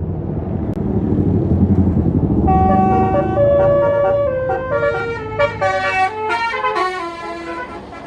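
A tour bus's multi-tone Basuri 'telolet' horn playing a stepping melody of clear notes, starting about two and a half seconds in and fading near the end. Before it, the bus's engine rumbles heavily.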